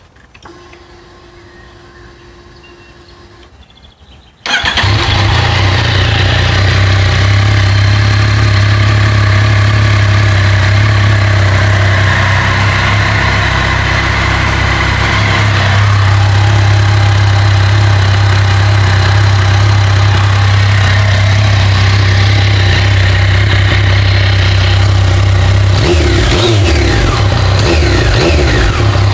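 Yamaha MT-09/FZ-09 inline three-cylinder engine with its stock exhaust. After a few seconds of a faint steady hum, the engine starts about four and a half seconds in and settles into a steady idle. Near the end the revs rise and fall a few times.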